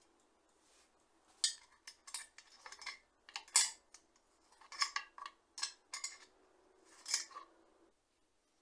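Open-end wrench and steel bicycle fittings clinking and scraping as a rear fender, its stays and a rack are bolted on. The sound is an irregular string of sharp metallic clicks and short scrapes.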